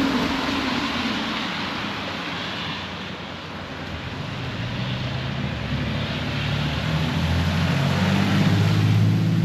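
Passing motor traffic: a hiss of a vehicle going by fades over the first few seconds, then an engine's low hum builds and is loudest near the end.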